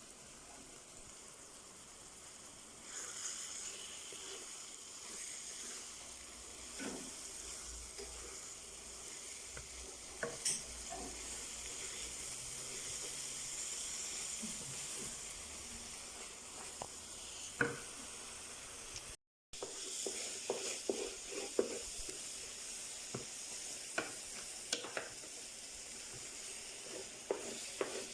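Onions cooking down with broth, butter and sugar in a pot, sizzling steadily as the liquid boils off, with a ladle scraping and knocking as it stirs. The sizzle grows louder a few seconds in, and the stirring clicks come more often in the second half.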